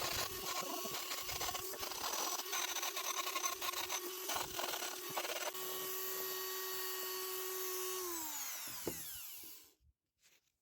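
Handheld electric power tool working against the metal of an antique hatchet for about five seconds, with a harsh grinding, rubbing noise over the motor's hum. It then runs free with a steady whine and, about eight seconds in, is switched off and winds down with a falling pitch to a stop.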